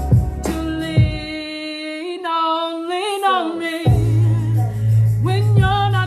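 A song playing: a singer's voice holding long, wavering notes over instrumental backing. The bass drops out about a second and a half in and comes back about two seconds later.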